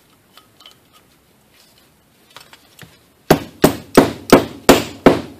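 A run of six sharp metal-on-metal knocks in quick succession, about three a second, each ringing briefly, starting a little past halfway after a few faint clicks of parts being handled.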